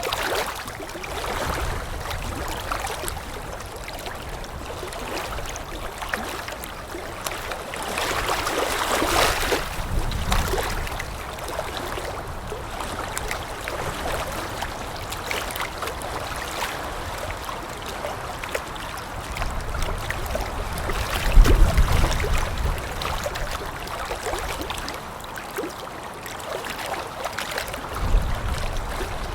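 Water lapping in small, irregular splashes, with wind gusting over it; the strongest gusts come about nine and twenty-one seconds in.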